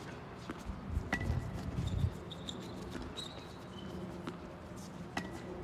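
Tennis balls struck by rackets and bouncing on a hard court during a rally: sharp hits about a second in and again near the end, with lighter taps between.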